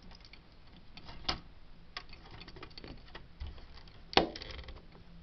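Light scattered clicks and taps of a plastic Lego model being handled, with one sharper click about four seconds in followed by a few quick small clicks.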